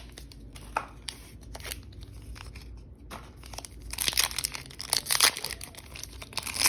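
Foil wrapper of a Pokémon booster pack crinkling and tearing as it is opened by hand, with scattered crackles that grow louder and busier about four seconds in.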